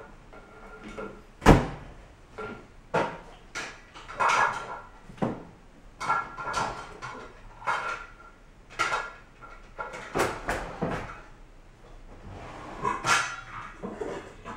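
A baby banging a small metal pan on a kitchen floor and against a plastic colander: irregular clanks and knocks, some with a short metallic ring, the loudest about a second and a half in.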